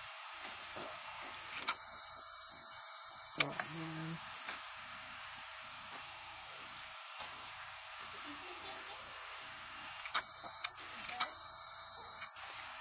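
Rainforest insect chorus: a steady, high-pitched drone of many insects singing at several pitches at once.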